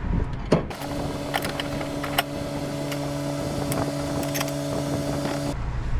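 Scattered metal clicks and knocks of hand tools seating a strut rod bushing on a Honda Acty's front suspension, over a steady hum that starts and stops abruptly.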